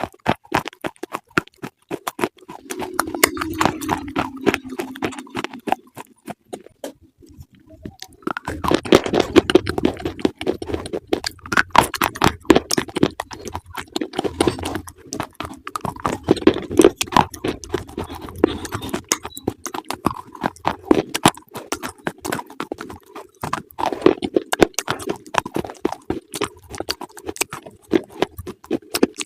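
Close-up chewing of crunchy food: a rapid run of crisp crunches and mouth sounds, with a short pause about seven seconds in.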